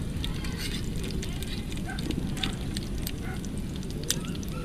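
Hot dogs sizzling in a frying pan on a portable camp gas stove, with scattered crackles and spits over a steady low rumble.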